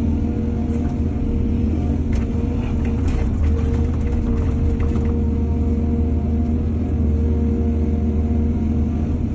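Excavator's diesel engine running steadily under load, with a light clatter of clicks and rattles about two to five seconds in.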